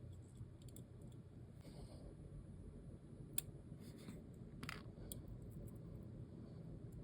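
Faint, irregular small clicks and light scrapes of watchmaker's tools, tweezers and screwdriver, working on a mechanical watch movement, over a low steady hum. The sharpest click comes about halfway through.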